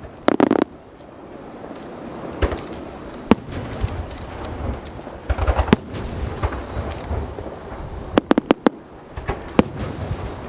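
Aerial fireworks bursting overhead: a quick run of crackling pops at the start, then single sharp bangs every couple of seconds and a tight cluster of bangs near the end, over a steady low rumble.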